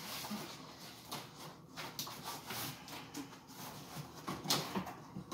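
Cardboard shipping box being opened and handled by hand: rustling and scraping of cardboard, with a few short knocks.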